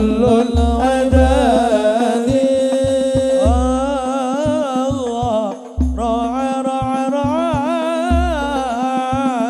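Banjari hadrah sholawat: a male lead voice sings a long melismatic Arabic line on held vowels, over rebana frame drums and regular deep bass-drum strokes.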